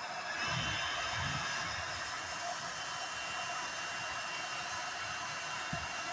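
Hair dryer running on its high setting, blowing a steady rush of air with a thin high whine; it gets a little louder about half a second in.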